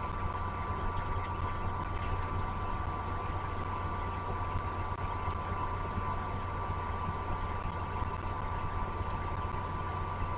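Steady low hum and hiss, with a faint short high chirp about two seconds in.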